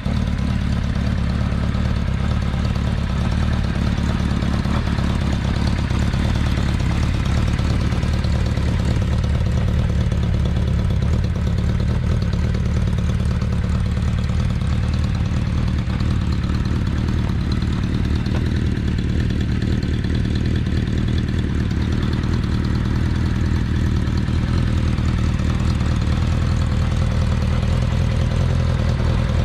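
Kawasaki Z500FX air-cooled inline-four motorcycle engine idling steadily. It runs evenly, with no odd noises, which the owner takes as a sign the bike is in good running order.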